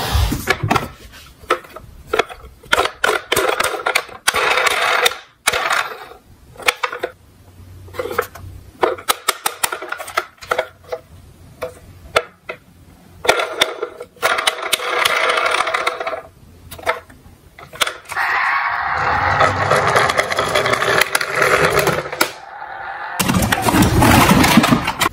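Diecast toy cars rolling down a slope track, with many quick clicks and knocks of small wheels and bodies, and stretches of rolling noise, the longest and loudest near the end.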